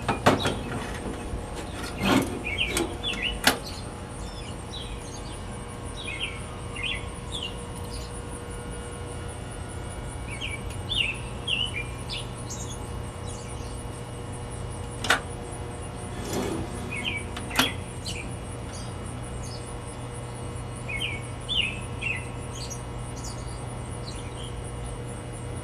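Small birds chirping in short clusters every few seconds, with a few sharp metallic clicks and knocks from handling the sinker mold and lead melter, over a steady low hum.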